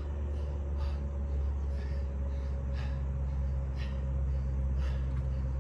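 A man breathing out sharply about once a second, in time with resistance-band overhead presses, over a steady low hum.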